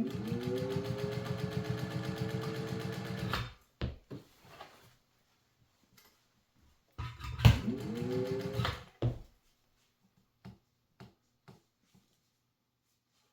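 Singer 1200 electric sewing machine stitching in two runs, one of about three and a half seconds and then one of about two seconds. Its motor rises in pitch as it speeds up at the start of each run, under a fast, even patter of needle strokes. A few faint clicks come near the end.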